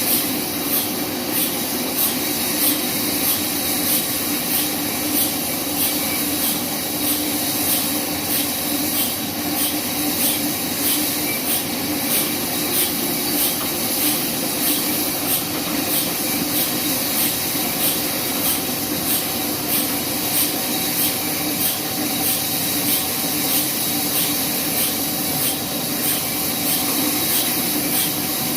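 Band sawmill running steadily, a continuous mechanical hum and hiss with a faint high ticking about twice a second.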